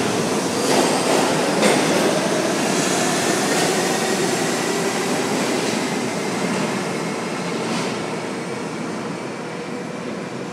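New York City subway train pulling out of an underground station: the cars clatter past with a few sharp knocks over the rail joints, then the running noise fades steadily as the train heads off into the tunnel.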